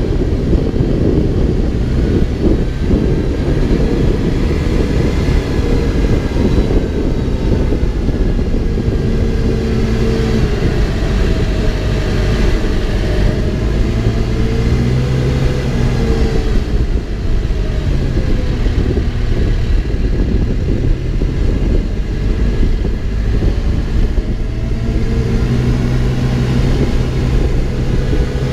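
Backhoe's diesel engine running steadily under load, its pitch rising and falling as the machine works, with mechanical rumble throughout.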